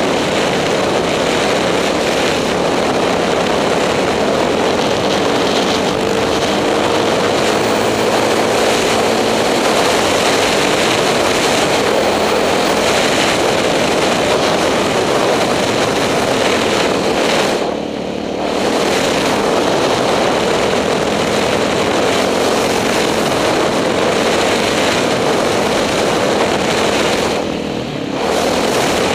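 KTM 620 LC4 single-cylinder four-stroke engine running hard at speed, under a dense rush of wind noise. The sound dips briefly twice, once just past halfway and again near the end.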